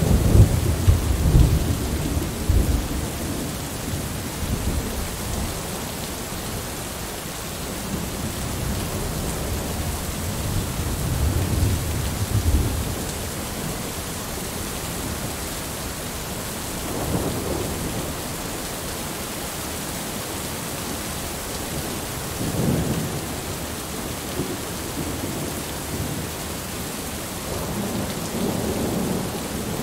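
Heavy rain falling steadily, with thunder rumbling several times. The loudest roll comes right at the start, another builds about ten to thirteen seconds in, and weaker rumbles follow later.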